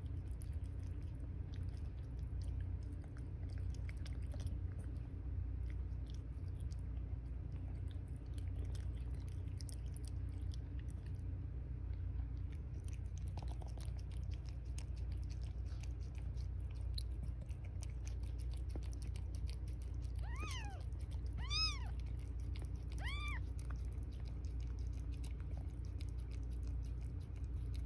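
Soft wet chewing and suckling clicks from nursing kittens and a cat eating wet food, over a steady low hum. About three quarters of the way in come three short, high mews, each rising then falling.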